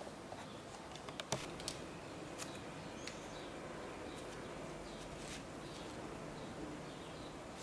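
Faint taps and light rustles of small paper slips being handled and set down on a cloth-covered table, over a steady low hiss. A few short clicks stand out about a second and a half in.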